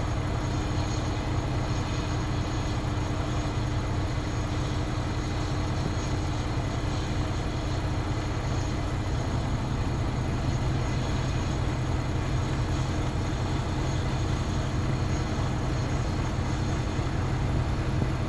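Vehicle engine idling steadily, heard from inside the stopped vehicle's cab as a low, even hum.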